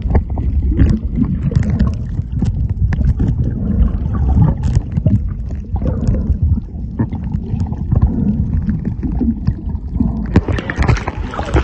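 Muffled underwater sound from a submerged camera: a deep, irregular rumble of water moving over the microphone, with scattered clicks and gurgles. About ten seconds in the sound turns brighter and fuller as the camera nears the surface.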